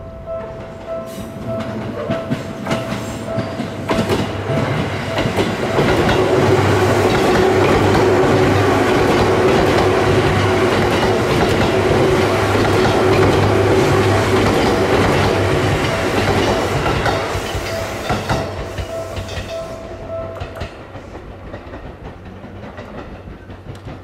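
A Japanese level-crossing warning bell rings steadily as a Seibu Red Arrow limited-express electric train passes, its wheels clacking over the rail joints. The train noise builds from about four seconds in, stays loud for about ten seconds, then fades. The bell stops about twenty seconds in.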